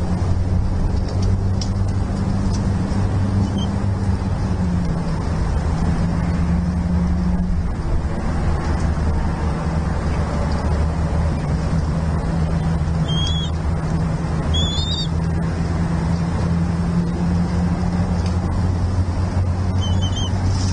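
A steady low drone, like a distant engine, over a rushing noise, with a few short, faint high chirps in the second half.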